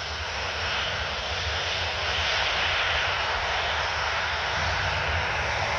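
Boeing 737-800's CFM56-7B turbofan engines running at low taxi thrust as the airliner rolls slowly toward the runway to line up: a steady jet rush that builds a little over the first couple of seconds, with a low rumble underneath.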